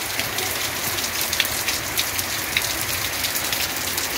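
Steady rain falling on clay-tile roofs and cobbled paving: an even hiss dotted with many small drop ticks.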